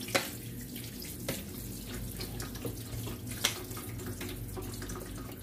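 Vinegar poured from a squeeze bottle over ground beef in a metal colander, trickling and splashing steadily through into a steel kitchen sink, with a few light clicks.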